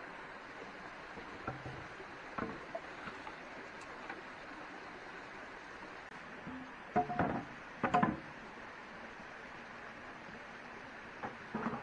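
A few short knocks and clatters in small clusters, the loudest two groups about seven and eight seconds in, over a steady background hiss.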